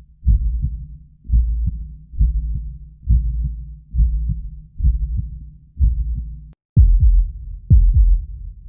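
Heartbeat sound effect: deep double thumps (lub-dub) in a steady rhythm of a little over one beat a second. Near the end it cuts briefly to silence and switches to a different, sharper heartbeat, with two louder thumps about a second apart and then a lull.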